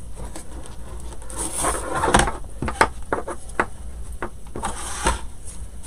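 Handling noise from a wooden door-hanger round on a countertop: scattered light knocks and taps, with two longer rustling scrapes, one about a second and a half in and one near the end, as it is threaded through from the back.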